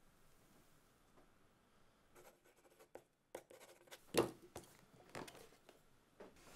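Short, soft scratching and rubbing strokes on paper at a desk, starting about two seconds in, the clearest a little past the middle.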